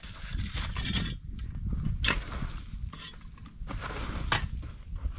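Scraping and crunching of a long-handled tool working dry quick-setting concrete mix and dirt into a fence-post hole, with a few sharp clicks.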